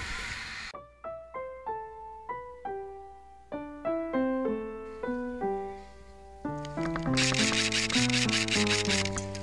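Background music: a melody of single decaying notes, with bass and drums joining about seven seconds in. It starts abruptly after a brief stretch of noisy field sound.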